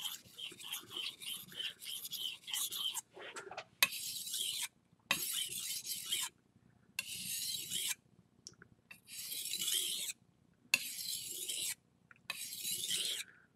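A VG10 steel kitchen knife blade being stroked by hand across a wet whetstone, sharpening one side of the edge: a gritty scraping, in quick short strokes for about the first three seconds, then in longer separate strokes with brief pauses between.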